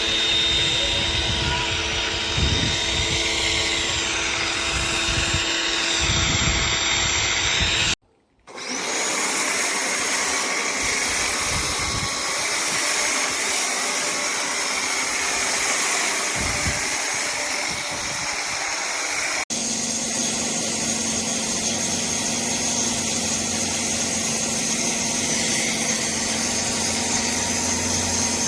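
Pressure washer running and spraying, a steady loud hiss over a motor hum. It cuts out briefly about eight seconds in and changes to a steadier hum about twenty seconds in.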